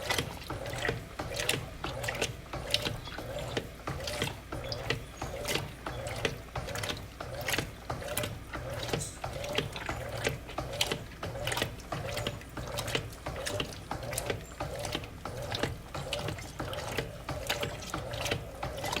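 Electrolux LTC07 top-loading washing machine running a wash, its motor humming steadily. Rhythmic mechanical clicking repeats every fraction of a second, with water moving in the drum.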